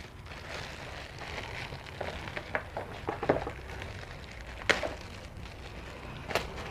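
Handling noises from the laptop and its packaging: crackly rustling with scattered small clicks. Two sharper clicks stand out, about two-thirds of the way through and again near the end.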